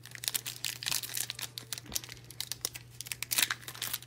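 Plastic-foil wrapper of a football trading-card pack crinkling and tearing as it is handled and opened: an irregular run of quick crackles.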